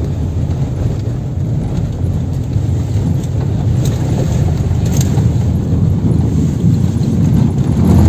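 Steady low rumble of a moving car's engine and tyres on a snow-packed road, heard from inside the cabin, growing slightly louder toward the end.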